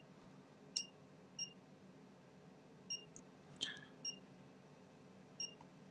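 Feeltech FY6600 function generator's beeper giving short, high beeps, about five of them at uneven spacing, as its rotary knob is turned step by step. There is a sharper click about three and a half seconds in.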